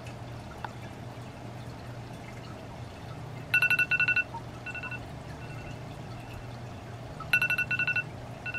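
iPhone alarm going off: a quick run of high beeps that fades into a few softer repeats, starting about three and a half seconds in and coming round again about four seconds later, over a low steady hum.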